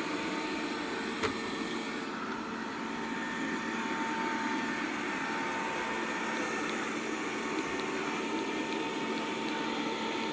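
Robit V7S Pro robot vacuum running steadily, a continuous whir with a steady hum, and a single click about a second in.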